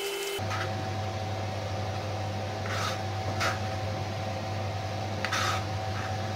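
A steady low mechanical hum runs throughout, with a few short scrapes and taps as sliced carrot strips are moved off a plastic cutting board onto a plate. The quick knife ticks of slicing stop abruptly just after the start.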